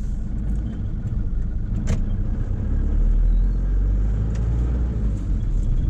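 Inside a moving car: the steady low rumble of the engine and the tyres on a wet road, with one sharp click about two seconds in.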